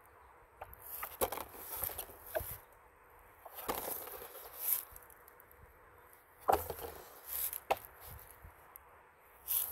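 Thin clear plastic bottle covers being handled and lifted over plastic pots: irregular crinkles of the plastic and light knocks, the sharpest about six and a half seconds in.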